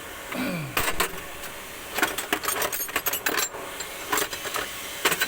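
Irregular metallic clicks and clinks of hand tools on the diesel feed pump as it is taken apart to reach its diaphragm.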